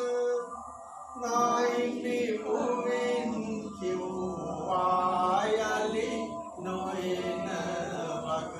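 A song sung with long held notes and a short pause about a second in, playing as the video's soundtrack.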